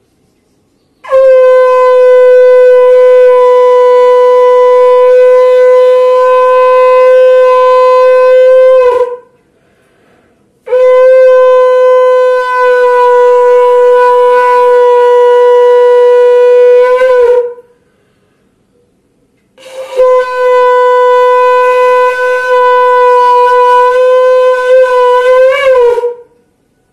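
Conch shell (shankh) blown three times as the auspicious mangal dhwani, each a long, loud blast of about seven seconds held on one steady note, wavering briefly just before it cuts off.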